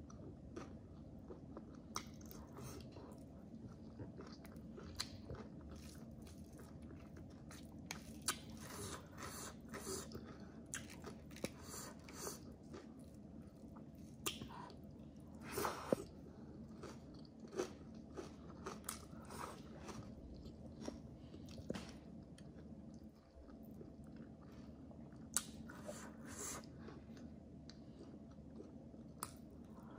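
A person chewing and biting food with wet smacks and crunches, irregular and close, the loudest crunch a little past halfway, over a faint steady hum.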